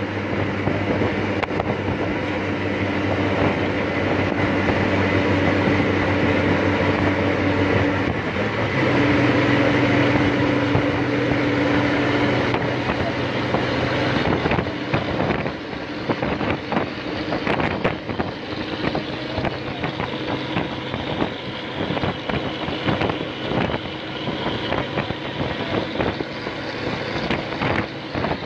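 Buses running side by side at speed: a steady diesel engine drone with road and wind noise, its pitch stepping up about a third of the way through. About halfway through the engine note fades, leaving rattling and wind buffeting on the microphone.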